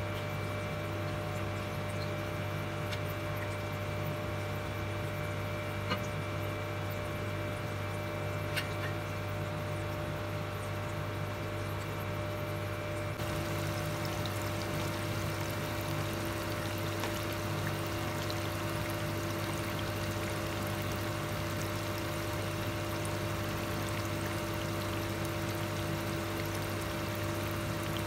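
Sweet potato chunks deep-frying in a stainless steel pot of oil: a steady bubbling sizzle that grows a little brighter about halfway through, over a steady low hum. Two light clicks in the first half.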